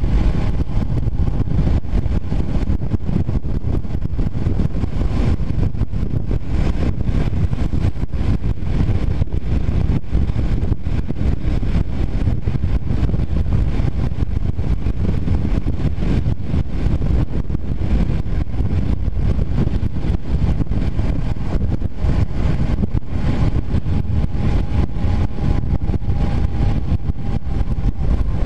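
Steady wind rush buffeting the microphone of a Honda CBR250R riding at cruising speed, with the bike's single-cylinder engine running underneath. There are no gear changes or revving.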